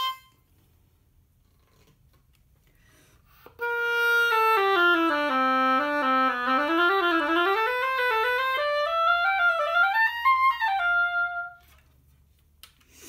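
An oboe played with a freshly scraped and clipped reed, beginning about three and a half seconds in. It plays a phrase that steps down into the low register, then climbs and ends on a short held note. The tone still has a little tiny bit of an edge, which the player takes as a sign that the corners of the reed's tip need more thinning.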